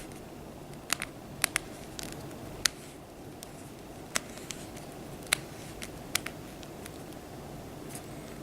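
Plastic toy figure being handled, its tail turned: about seven short, sharp clicks and taps at irregular intervals over a low steady background hiss.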